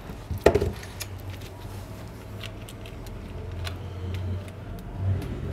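Small clicks and handling noise as gloved hands fit a phone's sub-board into the phone frame on a silicone repair mat, with one sharper click about half a second in and a low hum through the middle.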